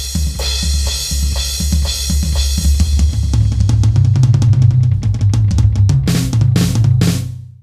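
Rock drum kit playing a steady beat with bass drum, snare and cymbals. About three seconds in it breaks into a fast fill, then ends with a few big crash hits that cut off sharply.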